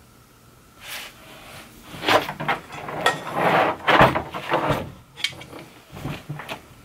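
Handling noise from a partly assembled Creality Ender 3 3D printer's aluminium-extrusion frame being lifted and turned on a workbench: irregular clicks and knocks starting about a second in, with a rustling stretch and a sharp knock about four seconds in.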